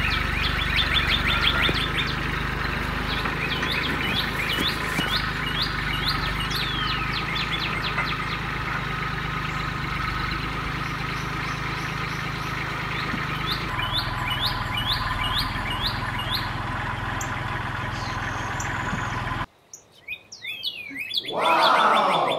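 Small birds chirping in quick runs of short high notes over a steady low hum. The sound cuts off abruptly near the end, then a louder sound falls steeply in pitch.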